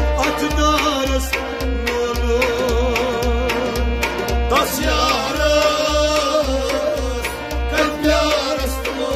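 Kashmiri Sufi devotional music: a man's voice singing with a wavering vibrato over sustained accompaniment and a steady hand-drum beat of about two strokes a second.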